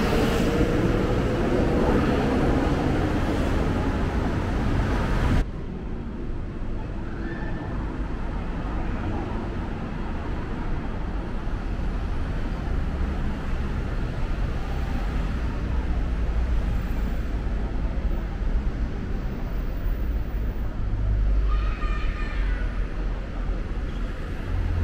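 City street ambience: a steady low rumble of road traffic, fuller and louder for the first five seconds or so, then dropping suddenly to a quieter rumble. Brief passers-by's voices are heard near the end.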